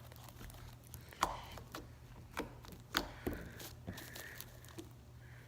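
Sticky slime being squeezed and stretched by hand, giving scattered small clicks and wet pops, about half a dozen in all.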